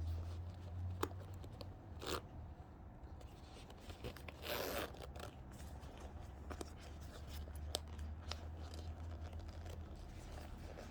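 Small clicks and rustles of hands working a zip slider onto a zipper's teeth, with a longer scraping rustle about four and a half seconds in.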